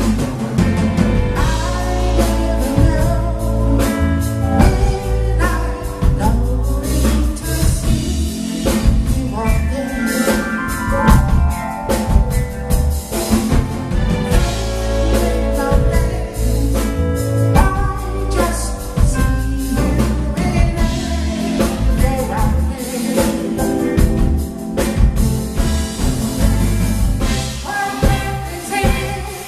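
Live band playing a song, with drum kit, electric bass and keyboard under a male lead singer and backing vocalists; a steady drum beat runs throughout.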